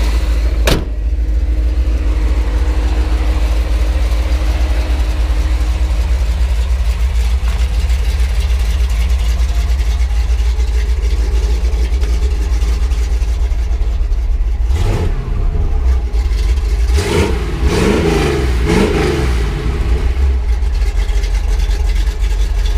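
5.7-litre small-block V8 with a competition cam, Hooker headers and a Flowmaster-type exhaust, idling with a heavy, steady rumble. A sharp click sounds about a second in, and the engine rises and falls in pitch briefly around the fifteenth second and again a few times a little later.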